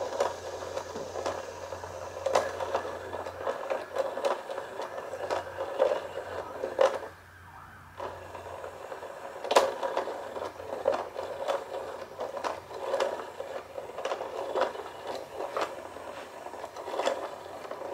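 Inkzoo whack-a-mole electronic cat toy running, its small motor whirring with many sharp clicks as the feather is poked out of the holes. It stops for about a second partway through, then starts again.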